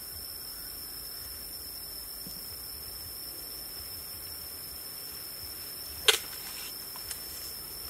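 Packing tape pulled off its roll with one short sharp rip about six seconds in and a fainter one a second later, over a steady high-pitched whine and hiss.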